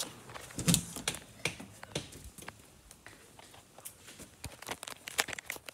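Handling noise from a phone carried by someone walking: irregular light clicks and taps, with one louder thump just under a second in.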